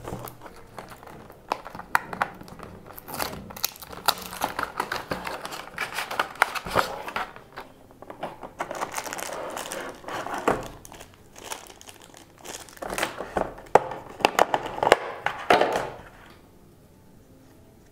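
Retail packaging being opened and handled: a cardboard box and a clear plastic blister tray crinkling, rustling and clicking in irregular bursts. The sounds stop about two seconds before the end.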